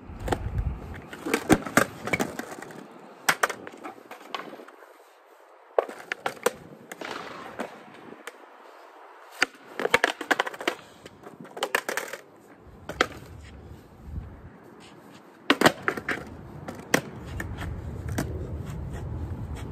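Skateboard being ridden and flipped on a hard court surface: wheels rolling with a low rumble, broken by repeated sharp cracks and clatters as the tail pops and the board slaps and lands on the ground.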